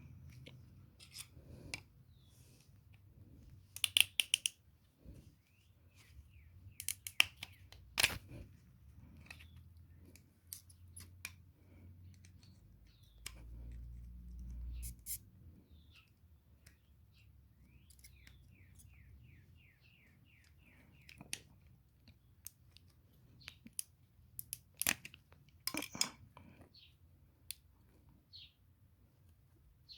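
Small parts and tools being handled during mower repair work: scattered clicks, knocks and scrapes, with a quick run of a dozen or so ticks past the middle and a brief low hum a little before it.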